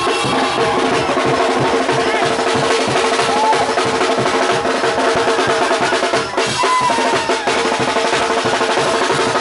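Live Mexican brass band playing: sousaphones, trombones and trumpets holding loud sustained notes over snare and bass drum keeping a steady beat.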